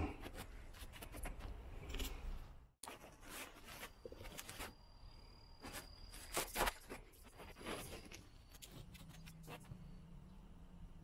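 Scattered light clicks and scrapes of hands and small parts on a bicycle headset: an Allen key working a bolt at the head tube, then a red preload spacer being handled and fitted. The sound drops out briefly about three seconds in.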